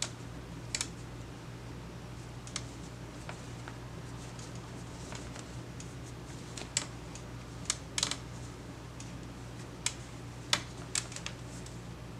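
Scattered light clicks and taps, about a dozen at uneven intervals and loudest around the middle and near the end, over a steady low hum.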